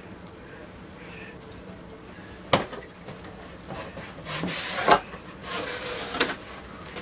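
Cardboard box being handled while unpacking: a sharp knock, then a couple of seconds of scraping and rustling, with a loud knock near the middle and another near the end.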